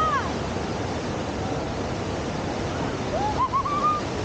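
Steady rush of fast river water pouring over a standing surf wave. Two short, wavering high calls rise over it, one at the start and a longer one about three seconds in.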